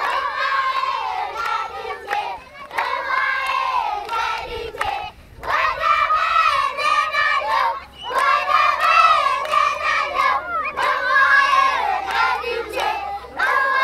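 A large group of children chanting together in unison, in repeated phrases of two to three seconds with short breaks between them, while they clap their hands.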